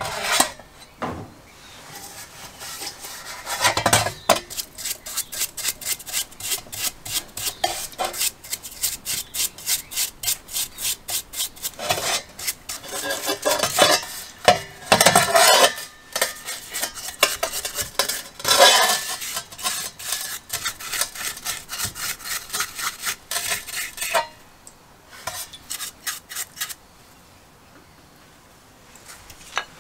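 Brush scrubbing the cylinder block and parts of a 1974 Briggs & Stratton 3 HP engine in a basin of cleaning liquid: quick back-and-forth strokes, about three to four a second, rasping on the wet metal with the odd knock against the enamel basin. The scrubbing stops a few seconds before the end.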